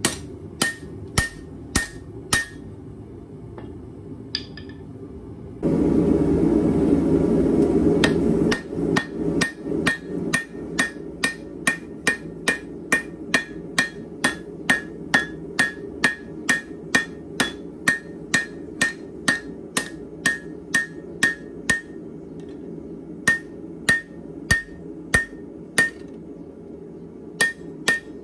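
Hand hammer striking red-hot leaf-spring steel on an anvil, in runs of about two blows a second, each blow with a short ring, with short pauses between runs. A steady low rushing noise runs underneath, and a louder rushing hiss lasts about two seconds, some six seconds in.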